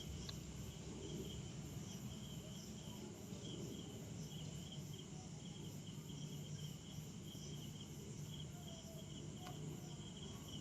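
Faint chorus of insects chirping in a steady, even pulsing rhythm, over a low steady hum.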